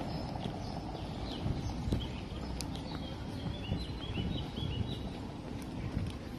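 Outdoor street ambience: a steady low rumble of traffic and wind, with a quick run of short high bird chirps about halfway through.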